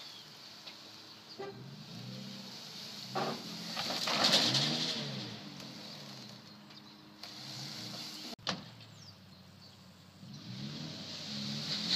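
2007 Toyota Tacoma pickup's engine revving up and down repeatedly as it strains to pull a trailer overloaded with tree-trunk sections. A sharp click comes about two-thirds of the way through.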